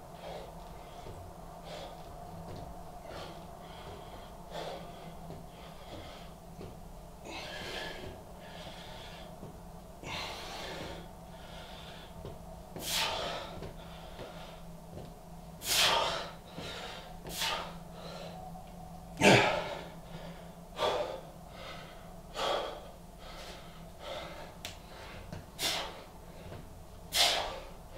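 A man breathing hard through a set of decline press-ups. The breaths are quiet at first. About halfway through they become sharp, forceful exhales, roughly one every second and a half, growing louder toward the end.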